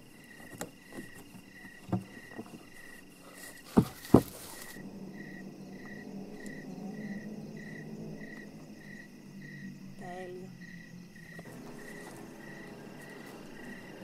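A cricket chirping steadily, just under two chirps a second. About four seconds in come two sharp knocks, close together and louder than the chirping.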